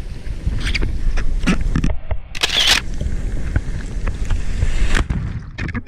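Surf whitewater churning and splashing around a hand-held action camera, with a heavy rumble of water and wind buffeting its microphone. There are many short splashes and one loud splash about two and a half seconds in.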